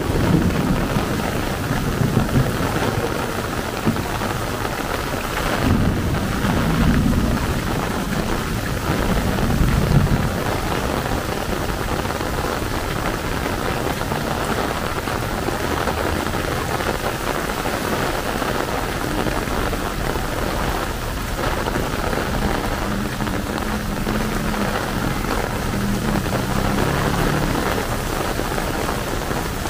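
Heavy rain pouring steadily, a dense even hiss, with low rumbles swelling in the first ten seconds or so.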